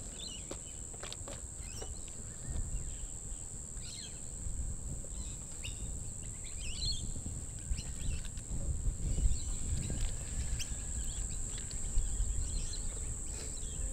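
Outdoor bush ambience: a steady high-pitched insect drone, with birds chirping on and off and a low rumble underneath.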